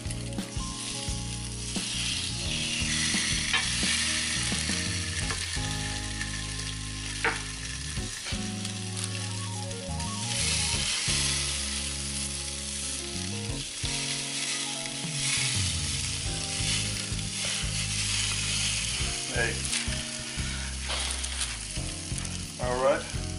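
Salmon fillets sizzling on the hot grill grate of a Ninja Foodi Smart XL Grill, a steady hiss, with a few light knocks as fillets are set down.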